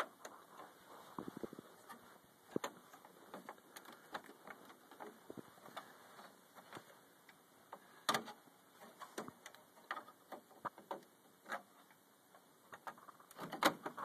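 Scattered light clicks and taps of a DDR memory stick and the computer's case being handled, with a sharper knock about eight seconds in and a few more near the end.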